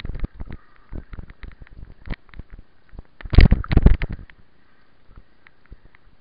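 Mountain bike ridden fast over a bumpy dirt trail, its frame and chain rattling in quick clicks and knocks. A burst of loud thumps comes a little past halfway.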